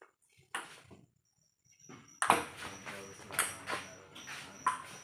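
Table tennis ball being struck back and forth in a rally, sharp clicks of ball on paddle and table coming about twice a second from a little over two seconds in, after a near-silent pause broken by a single click.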